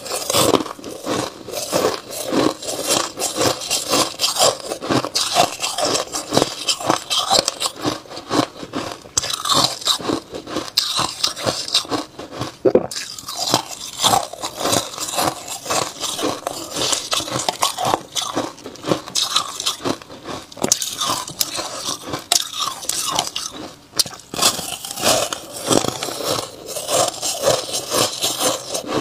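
A person biting and chewing a block of frozen white crushed ice: dense, irregular crunching and crackling as the ice breaks between the teeth.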